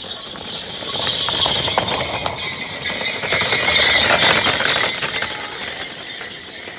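A pair of racing water buffalo gallops past close by, pulling a two-wheeled wooden racing cart: pounding hooves and a clattering, jingling cart. It is loudest about four seconds in as they pass, then fades.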